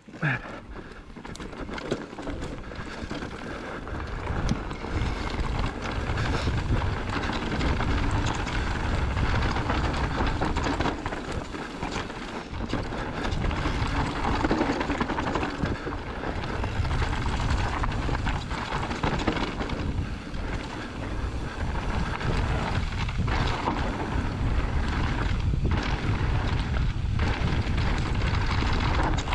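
Wind rumbling on an action camera's microphone as a mountain bike descends a rough, rocky trail at speed. Tyres roll over loose stones and dirt, with frequent knocks and rattles from the bike; the noise builds over the first couple of seconds.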